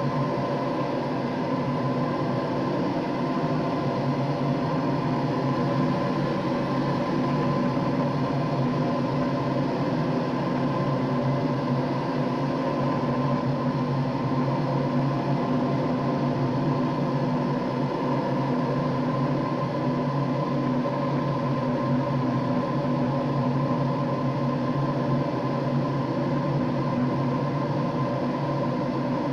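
Many small insects buzzing together in a steady, unbroken drone.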